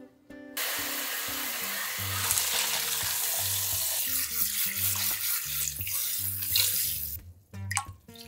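Kitchen tap running onto cooked noodles in a stainless steel colander as they are rinsed in the sink. The water starts about half a second in and cuts off about a second before the end, followed by a couple of light knocks.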